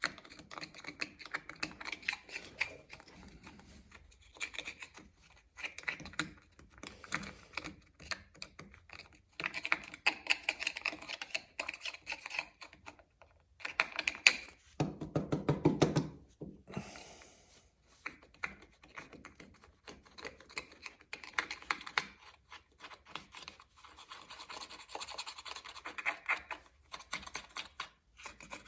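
Caked-on grime being scrubbed and scraped off a chainsaw part with an abrasive pad, in quick scratchy strokes that come in bursts with short pauses. A brief low buzz sounds about halfway through.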